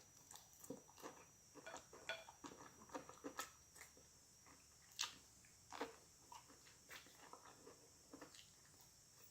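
Quiet close-up chewing with scattered small clicks of mouth and utensil, the sharpest about five seconds in.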